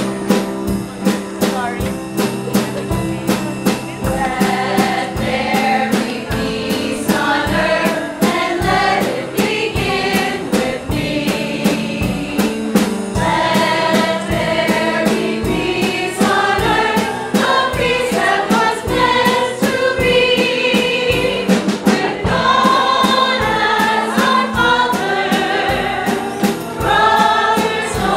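A choir of women and girls singing together over instrumental accompaniment with a steady drum beat; the voices come in about four seconds in.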